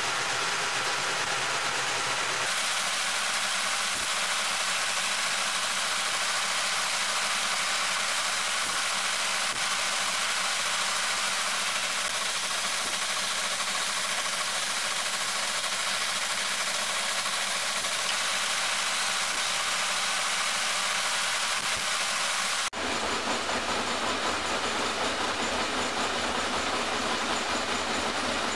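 Metal-working lathe running steadily, turning a PVC cylinder that is being grooved into wheel blanks. The sound changes abruptly about two seconds in and again near the end, where a lower rumble comes in.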